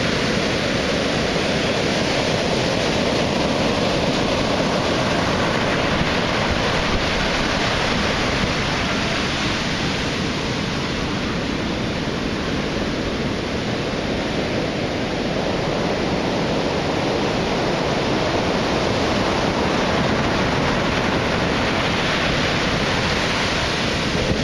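Heavy surf of 7 to 10 foot hurricane-driven waves breaking and washing in, heard as a continuous, even rush of noise that swells and eases slightly.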